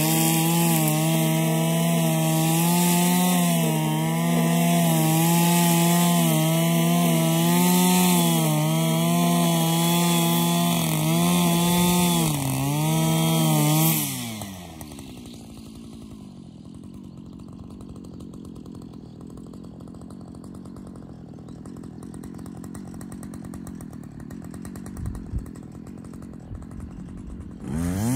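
Husqvarna 545RX brushcutter's two-stroke engine running at high revs under full throttle, with a brief dip, then dropping to idle about halfway through. It idles quietly for a while and revs back up near the end.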